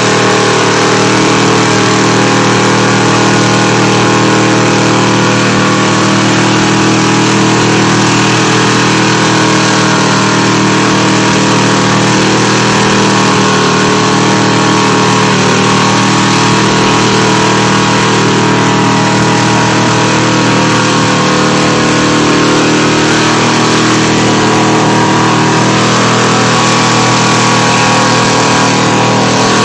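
A 1984 Chevy K1500 pickup's engine running loud and steady, its revs held nearly constant.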